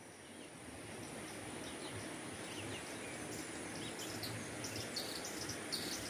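Natural ambience with small birds giving short, thin chirps now and then over a faint steady hiss, with a steady high-pitched insect drone throughout.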